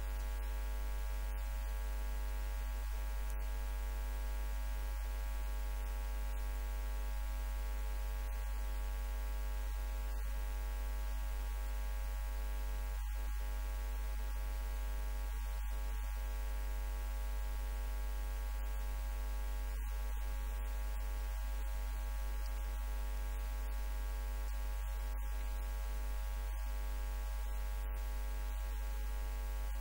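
Steady low electrical mains hum with buzzing overtones.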